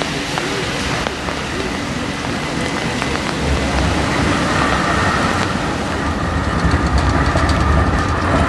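Light-blue articulated Oslo SL95 tram coming along wet rails on a curve and passing close, its low rumble building from about halfway through with a steady high whine and rapid clicking near the end. Rain hisses throughout.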